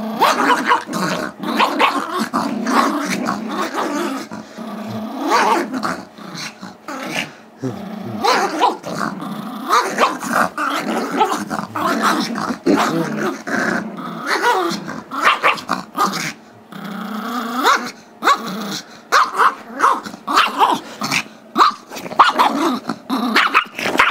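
Two small dogs, a Yorkshire terrier and a Chihuahua–Yorkie mix, growling in a playful tug-of-war over a squeaky toy. The growling goes on almost without pause, broken only by a few short gaps.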